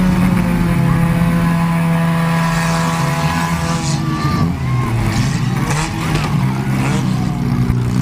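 Demolition derby cars' engines running and revving together, their pitch wavering up and down, with a few sharp knocks about halfway through.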